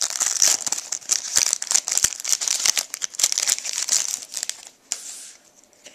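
Wrapper of a trading card pack being torn open and crinkled by hand, a dense crackling that dies down about five seconds in.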